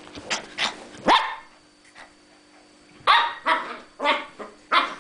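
Ten-week-old medium poodle puppy barking in play: three short barks in the first second or so, then, after a pause of about two seconds, four more in quick succession.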